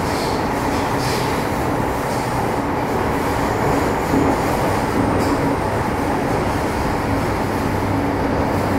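Inside a running MTR Metro Cammell M-Train EMU with GEC GTO chopper traction: a steady wheel-and-rail rumble with a few steady hums underneath.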